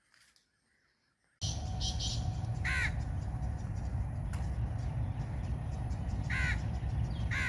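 Near silence at first. From about a second and a half in there is a steady low rumble, and a crow caws three times, a few seconds apart.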